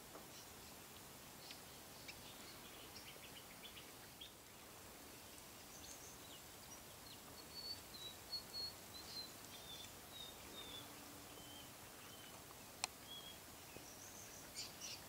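Faint bird chirps and short high calls over a quiet background hiss, with a run of brief, slightly falling notes in the middle. A single sharp click near the end.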